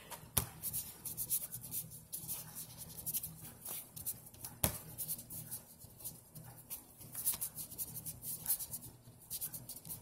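Scratchy strokes of writing on binder paper, short and irregular, with two sharper clicks about half a second in and a little before the middle.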